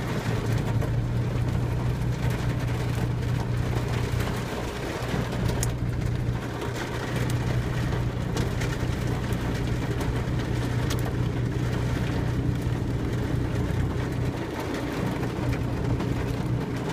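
Hail and rain drumming on a car's roof and windows, heard from inside the car, with scattered sharper clicks of stones striking. A steady low hum runs underneath.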